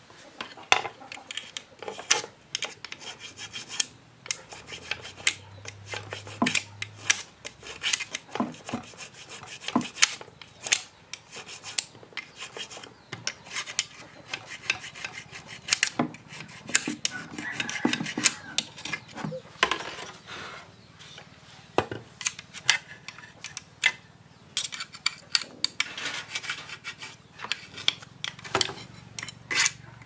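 Hand tools working a wooden crossbow part: irregular scraping and rubbing strokes, broken by many sharp clicks and knocks, with longer runs of scraping in the second half.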